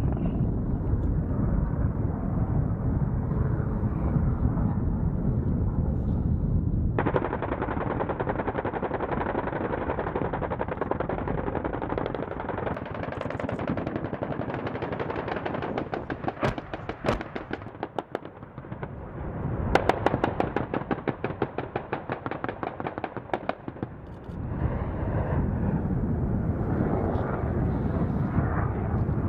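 AH-1Z Viper helicopter's rotor running, then, from about seven seconds in, long bursts of rapid fire from its M197 20 mm Gatling cannon, the shots coming in fast strings. The steady rotor sound returns near the end.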